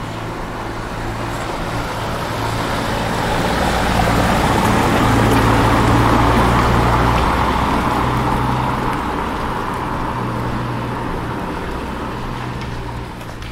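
A road vehicle passing slowly, its low engine hum and tyre noise swelling to a peak about six seconds in and then fading away.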